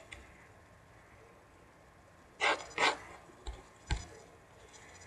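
Quiet room tone broken by two short scuffing noises about two and a half seconds in, then two light clicks from desk and mouse handling.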